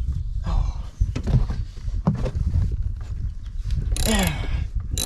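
Knocks, clicks and scrapes of hands and tools working on a push lawnmower, with a short falling squeak about four seconds in.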